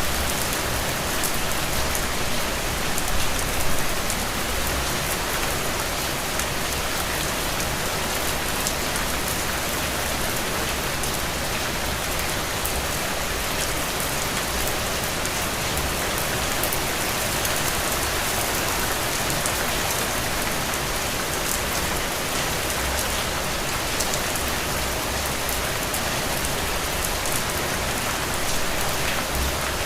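Heavy rain falling steadily: a dense, even hiss of rain with many sharp individual drop hits, swelling briefly a few seconds in.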